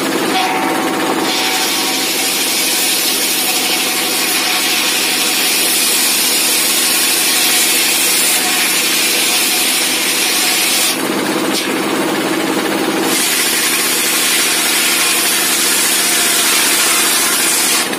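Homemade table circular saw driven by a single-cylinder dompeng diesel engine, the blade ripping through wooden planks in two long cuts with a short pause about eleven seconds in. The diesel runs steadily underneath throughout.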